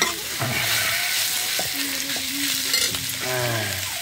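Chicken pieces sizzling in hot oil in a metal wok, with a spatula stirring and scraping them around the pan.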